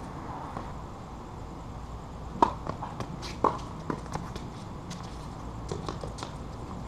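Tennis rally on a hard court: sharp pops of the ball off racket strings and the court surface, the two loudest about a second apart midway, among lighter footsteps and shoe scuffs.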